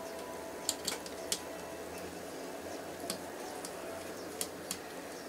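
A few light, scattered clicks and taps of small laptop parts being handled while the CPU fan is worked loose, over a faint steady hum.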